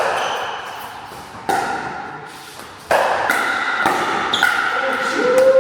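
Pickleball rally: paddles hitting the plastic ball with sharp pops, roughly one every second and a half, then quicker exchanges, each pop ringing on in a large hall.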